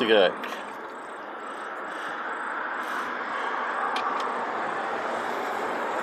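Automatic transmission fluid trickling steadily off the Allison transmission's valve body into a drain tray, growing a little louder over the first few seconds, with a faint click about four seconds in.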